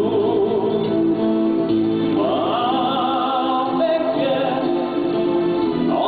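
A song: a man singing long, held notes with vibrato over instrumental backing.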